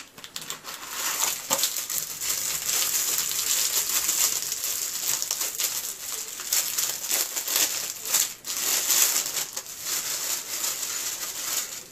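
Packaging crinkling and rustling in continuous, irregular handling as a boxed hip flask is unwrapped by hand.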